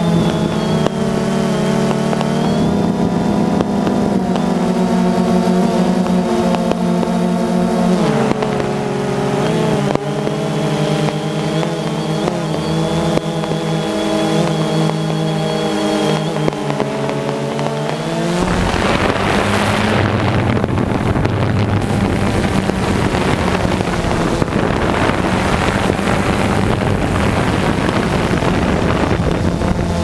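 DJI Phantom 2 quadcopter's four electric motors and propellers whining steadily, the pitch stepping up and down a few times as the throttle adjusts. From about two-thirds of the way in, a rougher, crackly noise joins and blurs the whine.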